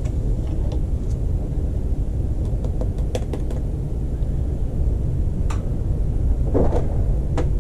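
Steady low rumble, with a few light clicks and taps of a metal spoon scooping bentonite powder in a small plastic cup.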